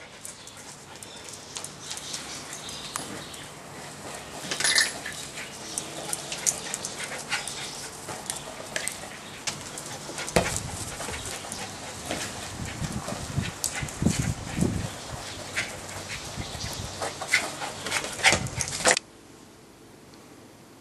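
Two toy poodles playing with a ball on concrete: scattered taps and scuffs of paws and the ball, with some dog sounds among them. Near the end it drops suddenly to a faint hiss.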